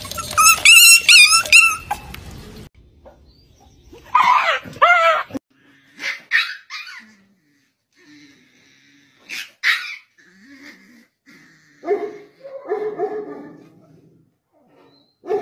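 A small puppy yapping in short, high yips and whimpers, a few at a time, with lower growly barks about twelve seconds in. Before that, for the first two seconds, there is a loud, high, wavering cry.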